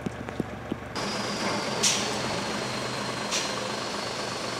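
Large truck's diesel engine idling steadily, with two short hisses of air about a second and a half apart.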